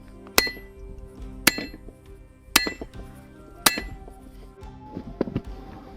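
Hand hammer striking a steel drift driven through a hot axe eye: four hard blows about a second apart, each with a bright metallic ring, then a few lighter knocks near the end. Background music underneath.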